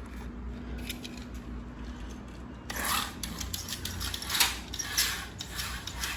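Carrera slot cars running on the plastic track: a rubbing, rasping whir of the small electric motors and the guide braids along the rails, which grows louder about three seconds in.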